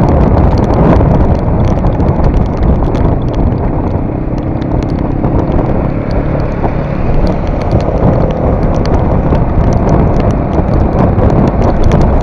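Motorcycle on the move: the Bajaj Avenger 220 cruiser's single-cylinder engine running under steady wind rush on the microphone, with scattered sharp ticks.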